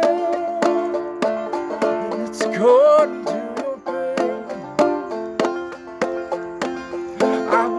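Five-string banjo played clawhammer style: a modal old-time tune in G modal tuning, with the fifth string dropped to F.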